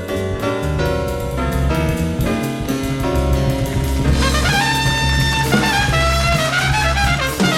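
Small jazz group playing live, from a cassette tape of an FM radio broadcast, with a walking bass line and drums underneath. The first half has short, repeated chords; from about four seconds in, a held lead melody enters, bending up and down in pitch.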